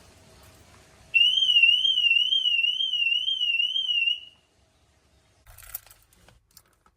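Car alarm siren sounding a warbling electronic tone that swings up and down about two to three times a second. It sounds for about three seconds, then cuts off. A brief, quieter rustle or click follows near the end.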